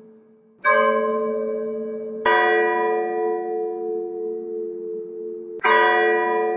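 Church bells tolling slowly, a funeral toll: three strikes, the first about half a second in, the next a second and a half later, the last near the end, each ringing on and slowly fading. The second and third strikes come from a different-sounding bell than the first.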